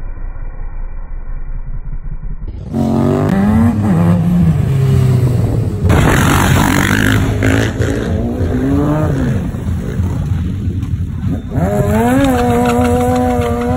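Motorcycle engines revving, the pitch rising and falling in repeated surges as riders pull wheelies. The sound is muffled for the first couple of seconds, then turns clearer and louder, with fresh revs about three seconds in, around eight seconds and again near the end.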